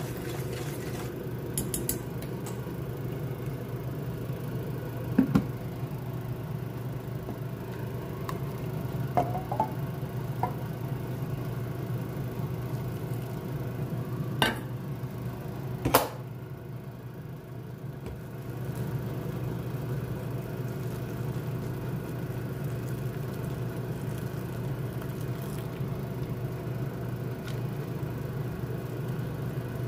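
Steady mechanical hum, like a small motor or fan running, with a few sharp clicks and clinks scattered through it.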